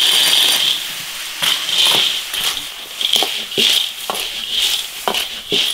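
Food frying in hot oil in an iron wok, sizzling in repeated swells as it is stirred, with sharp knocks and scrapes of the spatula against the wok.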